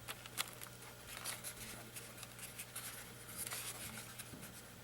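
Faint scratching, rubbing and light clicks of hands handling a small foam RC airplane, over a steady low hum.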